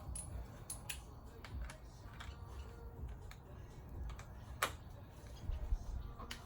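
Irregular light clicks and taps of hand tools working on metal engine parts, with one sharper click a little before five seconds in, over a low steady rumble.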